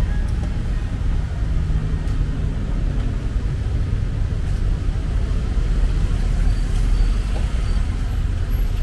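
Steady low rumble of road traffic passing along a busy city street.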